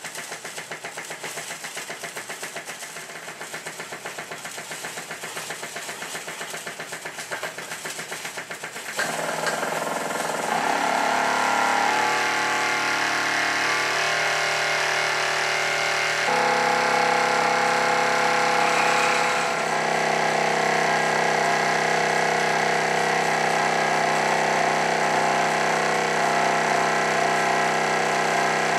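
Early Cheddar Models model steam engine running on live steam with a fast, even exhaust beat. About nine seconds in it gets louder and settles into a steady running note.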